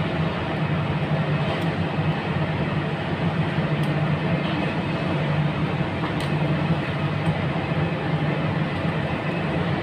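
Steady mechanical hum and rumble of running machinery, with a few faint light clicks from wires being fitted into a contactor's terminals.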